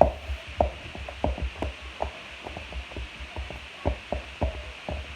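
Slime being squished and poked by hand, making irregular short clicks and pops, a few each second, with a soft low thud under each.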